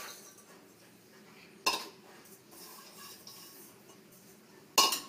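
Stainless steel bowl clinking against a stainless steel pot as lumps of jaggery are tipped in: two sharp metallic clinks, one about one and a half seconds in and the other near the end.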